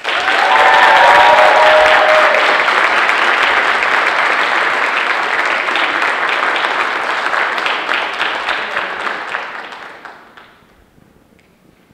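Audience applauding, starting suddenly, loudest in the first two seconds, then thinning and dying away about ten seconds in.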